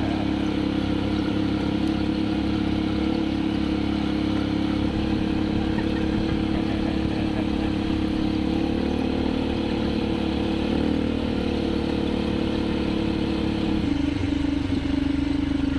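Small ATV (quad bike) engines running steadily as the quads ride along. The engine note holds steady and shifts near the end to a single lower drone.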